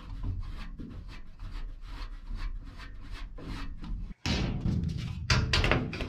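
Blower motor and wheel of an old GE furnace turned by hand inside its sheet-metal cabinet to check that it spins freely, with light rubbing and small knocks. After a break about four seconds in, the metal blower door panel is handled and fitted back on, with louder knocks and scrapes near the end.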